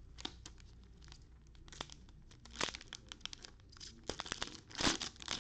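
Trading-card pack wrappers crinkling and tearing as the packs are ripped open and handled, a run of sharp crackles that grows louder and denser toward the end.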